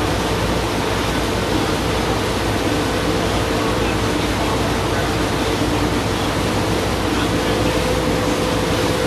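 Motorboat under way at steady speed: a constant engine drone under the rush of churning water from the wake.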